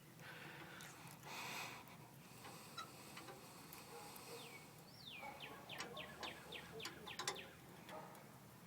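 A bird calling: a single down-slurred whistle, then a quick run of about eight short falling chirps, from about halfway through until near the end. A brief soft rustle about a second in.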